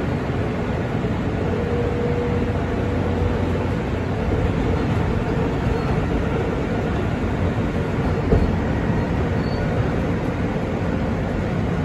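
R160 subway car with Siemens propulsion running at speed, heard from inside the car: a steady rumble of wheels on rail and running gear. A faint steady tone comes and goes in the first half, and a single sharp clack sounds about eight seconds in.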